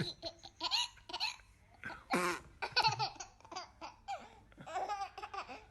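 Baby laughing in short repeated bursts of giggles.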